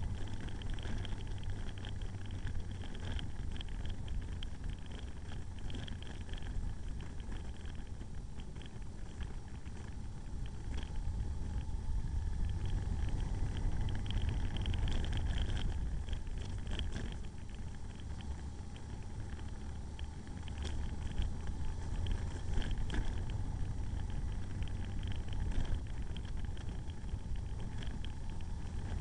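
Motorcycle riding along a country lane, heard from on the bike: steady engine and riding noise under a heavy low rumble.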